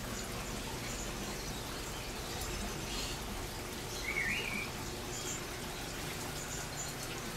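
Steady trickle and splash of water from the aquarium filters and aeration in rows of fish tanks, with faint drips and a short high chirp about four seconds in.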